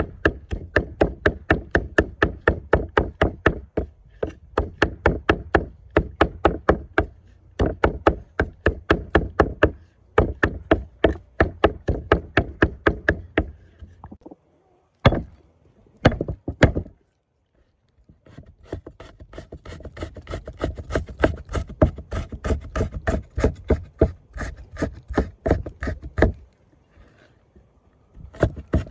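Rapid chopping on a wooden cutting board: fast, even blade strikes at about five a second, in long runs with short pauses.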